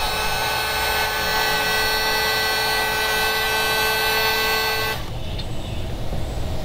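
Electric heat gun running, a steady fan whine over rushing air, as it shrinks heat-shrink tubing on a wire's crimp connector. It switches off about five seconds in.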